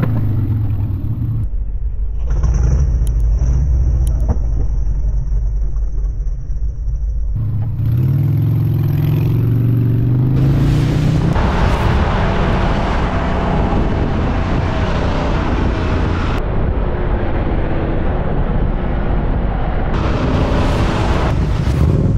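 Motorcycle engines heard from the rider's bike-mounted camera. The engine runs low in city traffic and revs up with rising pitch about eight seconds in. From about ten seconds there is heavy, steady wind and engine noise at freeway speed.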